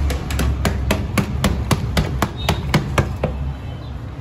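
A quick run of sharp knocks, about four a second, as an upturned plastic ice-cream tub is tapped to shake the frozen block out into a metal pot. The knocks stop a little over three seconds in.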